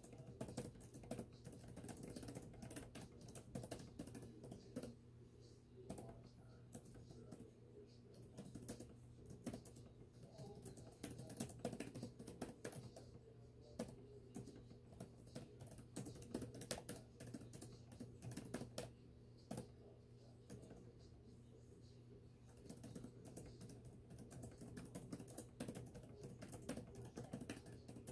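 Typing on a laptop keyboard: quick, irregular runs of soft key clicks broken by short pauses.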